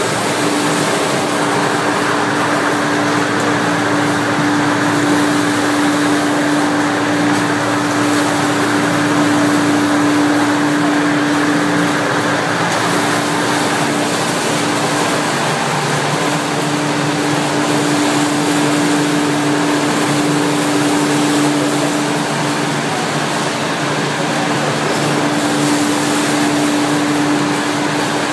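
Olive mill running: the stone crushing wheels turning in their basin, with the machinery giving a loud, steady mechanical drone over a constant hum that drops out for a few seconds midway.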